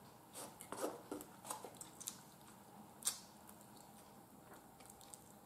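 Faint eating sounds of a person chewing baked chicken leg: a handful of soft mouth clicks and smacks, mostly in the first two seconds, with one sharper click about three seconds in.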